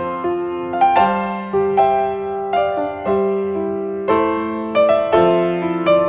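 Gentle background piano music: single notes and chords struck about once or twice a second, each ringing on as it fades.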